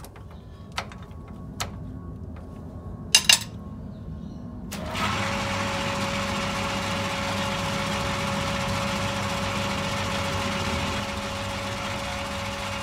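Metal lathe: a few sharp clicks of tooling being set, the loudest a double click, then about five seconds in the lathe starts and runs steadily with a constant whine while a centre drill is fed into an aluminium blank from the tailstock.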